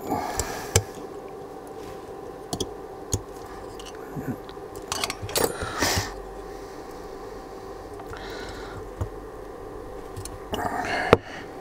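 Small clicks, taps and short scrapes of hand tools and small plastic parts being handled during bench reassembly of a smart plug, over a steady low hum.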